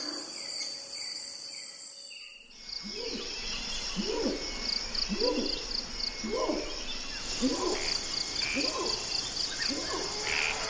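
Tropical forest at night: a steady, pulsing chorus of insects, with a sudden change a little over two seconds in, after which an animal repeats a short, low hooting call about once a second.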